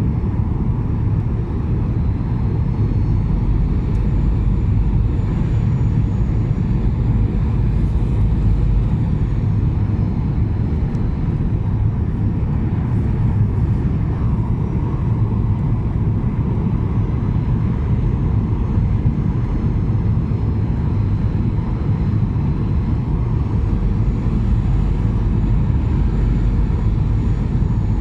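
Cabin noise inside a Boeing 737-800 airliner on final approach: a steady, loud rumble of engines and airflow, with faint high engine whines that slowly shift in pitch.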